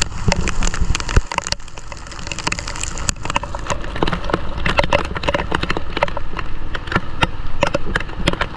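Motorcycle riding through heavy rain, heard through a GoPro's protective case: a muffled low rumble of engine and wind with raindrops ticking on the case in many sharp clicks.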